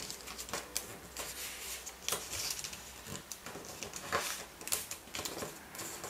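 Origami paper being folded and creased by hand: irregular crinkles and rustles of the paper with soft taps as fingers press the folds flat.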